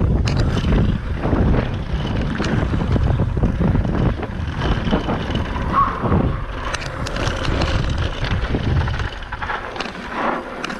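Wind buffeting a helmet camera's microphone as a mountain bike rolls fast down a dirt and gravel trail, with tyre noise and scattered clicks and rattles from the bike over rough ground. The rumble eases near the end as the bike slows.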